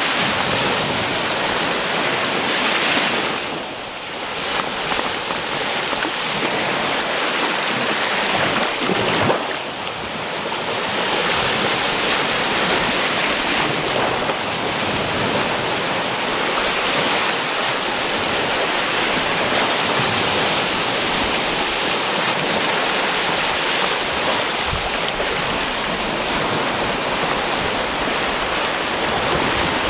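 Mediterranean sea waves washing onto the beach, a continuous rush of surf that eases briefly twice, near 4 and 10 seconds in.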